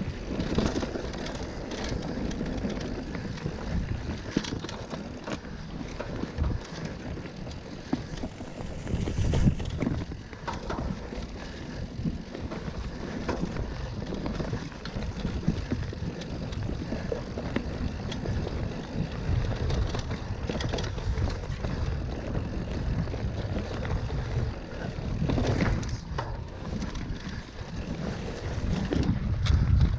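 Mountain bike riding a dirt singletrack: tyres rolling over the trail and the bike rattling over bumps, a steady low rumble with occasional sharper knocks. It gets louder near the end.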